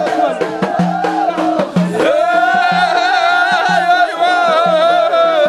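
Ahidous: a chorus of men singing, settling into long held notes about two seconds in, over a steady beat of bendir frame drums struck about twice a second.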